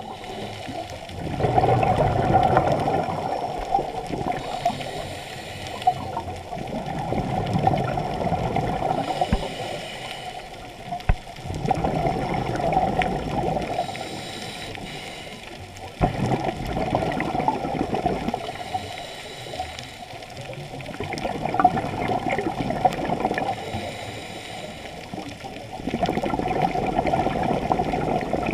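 Muffled water noise heard underwater through a camera housing, a gurgling rush that swells and fades about every four to five seconds.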